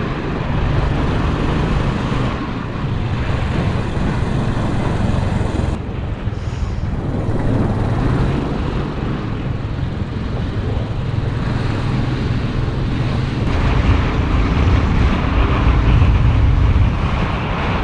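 Motorcycle engine running steadily while riding on the road, with wind noise on the microphone. The sound changes abruptly twice, about six seconds in and again near thirteen seconds.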